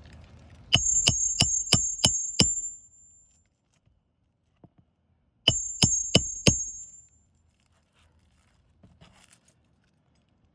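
Nails being driven in quick succession, about three sharp metallic strikes a second with a high ring. Six strikes come first, then four more after a pause of about three seconds.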